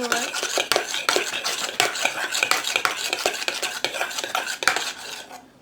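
A spoon stirring ice-cream mixture in a bowl: quick, continuous clinks and scrapes against the bowl, stopping near the end.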